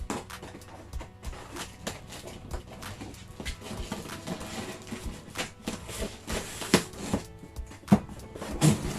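Rustling, clicks and knocks of a parcel being opened and handled, over background music. The sharpest knocks come near the end.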